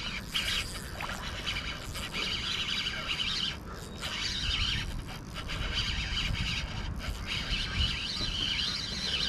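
Small birds chirping and twittering again and again over a steady low rumble.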